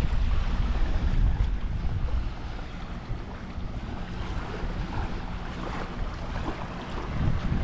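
Wind buffeting the microphone in gusts, heaviest in the first two seconds and again near the end, over the soft wash of small waves on the shore.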